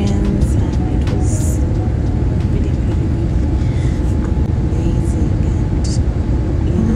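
Airliner cabin noise in flight: a steady, deep rumble of the jet engines and airflow.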